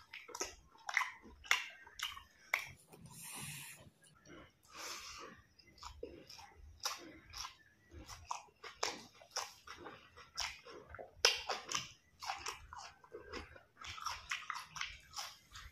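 A person chewing a mouthful of food: wet smacking and clicking mouth sounds, one after another.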